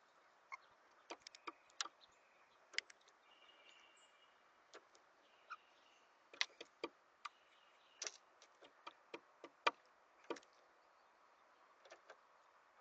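Irregular sharp taps and clicks of a blue jay pecking at seed on a bird feeder.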